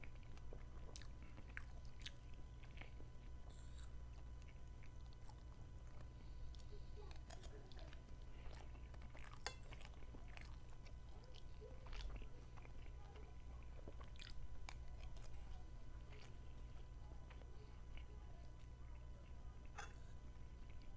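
A person chewing and eating macaroni pasta, with scattered short clicks of a metal spoon against the plate. A steady low hum runs underneath.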